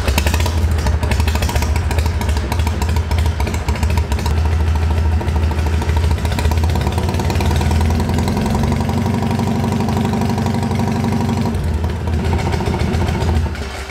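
Ural Wolf motorcycle's tuned, air-cooled flat-twin engine, kick-started, catching right at the start and then running steadily.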